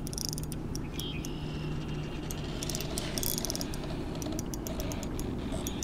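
Ultralight spinning reel clicking and ratcheting in quick, irregular runs while a hooked channel catfish pulls against the line. A low steady hum sits underneath for the first couple of seconds.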